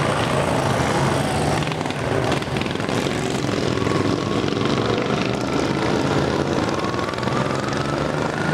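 Racing lawn mower engines running hard as the mowers lap the dirt track, a steady engine drone with a faint rising whine over the last few seconds as one accelerates.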